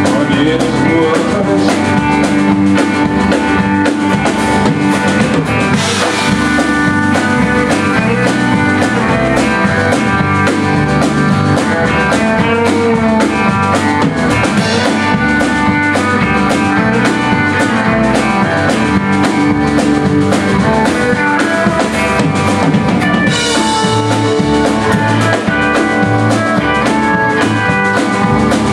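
Live rock band playing an instrumental passage with no singing: drum kit keeping a steady beat under electric and acoustic guitars and bass.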